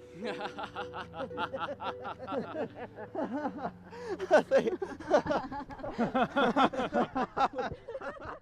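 Several people laughing heartily in a laughter yoga exercise, in quick overlapping ha-ha bursts that grow louder about four seconds in.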